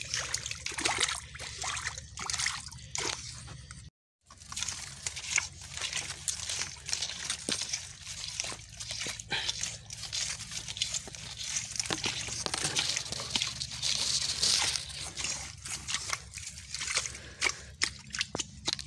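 Irregular sloshing, splashing and squelching of wading through shallow muddy stream water and deep, sucking mud. The sound drops out completely for a moment about four seconds in.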